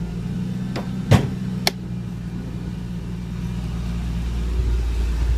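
Mercedes-Benz M272 V6 petrol engine idling evenly just after a cold start, with no knock yet; a few sharp clicks about a second in, from the hood being unlatched and opened, and the engine grows louder near the end.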